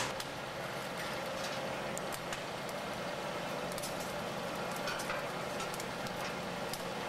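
Steady, even hiss with a few faint scattered clicks, and no distinct event standing out.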